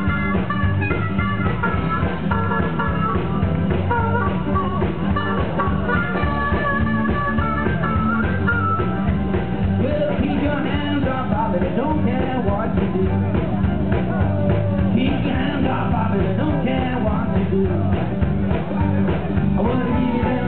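Live band with upright bass, fiddle and guitars playing an upbeat number through outdoor PA speakers: a strong, steady bass line under a melody line that stands out over roughly the first nine seconds.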